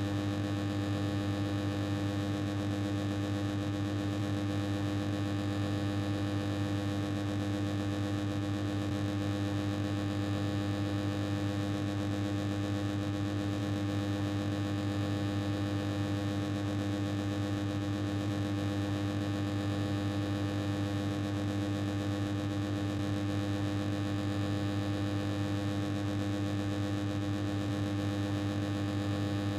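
Noisy old machine running: a steady low electrical hum over a constant hiss, unchanging throughout.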